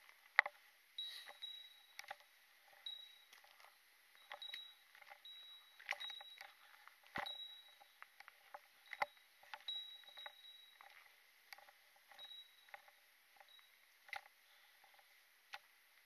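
Footsteps on a dirt forest trail mixed with handling knocks on a handheld camera: irregular light ticks and thumps, the loudest about half a second in. Faint short high notes repeat in the background.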